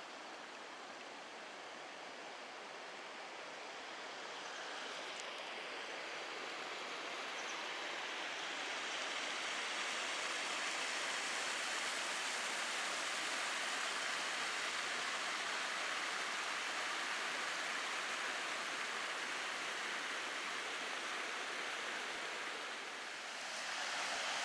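A forest stream rushing over small rocky cascades, a steady wash of water noise that grows louder over the first ten seconds or so and then holds steady.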